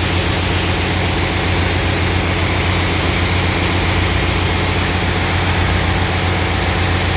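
Generator engine running with a steady, even hum; the uploader presents this running as a misfire.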